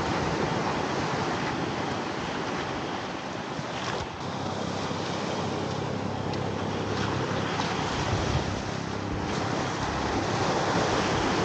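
Small ocean waves breaking and washing up the beach in a steady rush, with wind buffeting the microphone.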